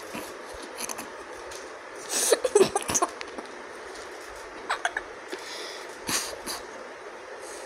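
Two puppies scuffling on newspaper beside a steel food bowl: rustling paper, scattered clicks and a few short puppy vocal sounds, loudest in a cluster about two to three seconds in.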